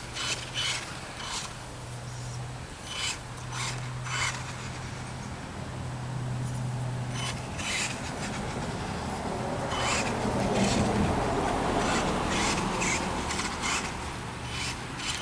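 1/16-scale Traxxas Revo VXL electric RC truck driving, tyres scraping over hard ground with repeated knocks and clatter from the chassis and suspension. A low hum comes and goes in the first half, and the scraping grows rougher in the second half.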